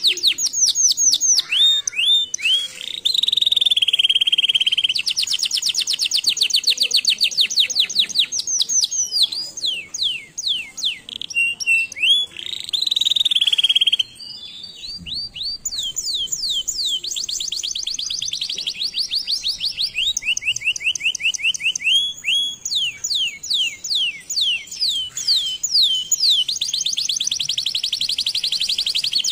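Domestic canary singing a long song of rapid repeated trills and rolls, changing phrase every second or two, with some notes held steady for a second or two. The song dips briefly about halfway through.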